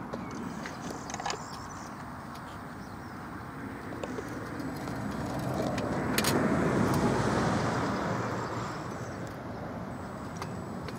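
A road vehicle passing by: its noise swells to a peak about two-thirds of the way through and then fades, with a few sharp clicks.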